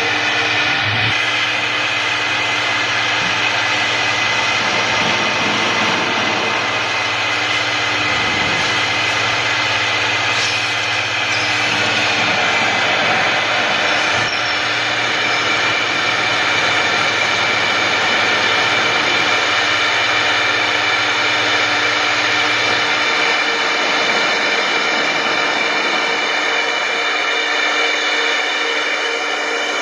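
CNC router with a rotary axis running, its spindle giving a steady machining whine and hiss. A low hum underneath stops about three-quarters of the way through.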